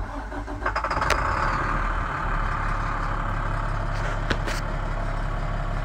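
International 4400 truck's 7.6 L DT diesel engine starting and settling into a steady idle, heard from inside the cab. A couple of brief clicks sound about a second in and again about four seconds in.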